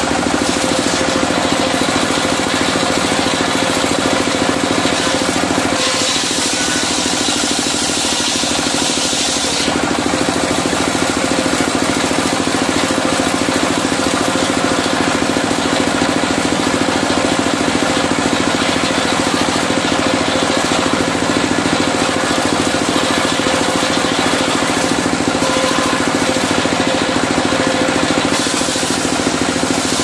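Portable circular sawmill driven by a single-cylinder diesel engine, running steadily under load throughout. A higher hiss from the blade cutting medang timber comes in about six seconds in and again near the end.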